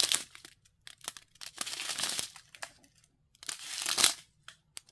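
Small plastic bags of diamond-painting drills crinkling as they are handled, in three main bursts.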